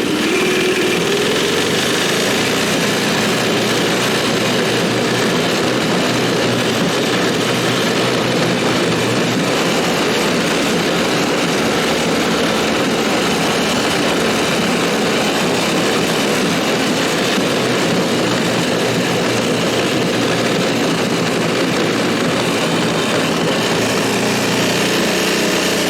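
Tecumseh H35 single-cylinder four-stroke engine of a homemade snowmobile running steadily.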